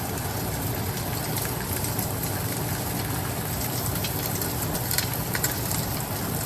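Oxtails searing in oil in a pan, a steady sizzle with small crackles, over the even hum of a stove fan.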